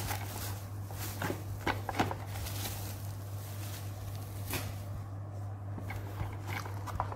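Bubble-wrap plastic packaging rustling and crinkling in the hands as it is pulled off a boxed toy car, with a few sharp crackles in the first couple of seconds and one more about midway. A steady low hum runs underneath.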